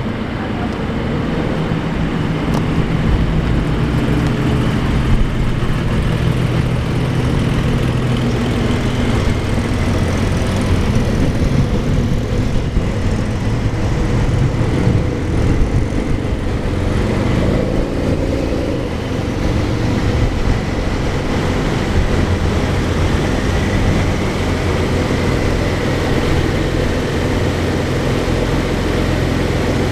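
Sports car engine and exhaust running steadily as the car drives, a continuous low drone whose pitch shifts a little now and then.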